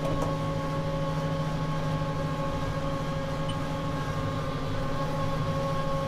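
Tractor engine and PTO-driven Krone Comprima baler running steadily in pickup mode, heard from inside the tractor cab: an even drone with a constant whine.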